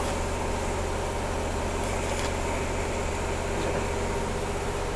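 An engine idling, a steady low hum that holds even throughout.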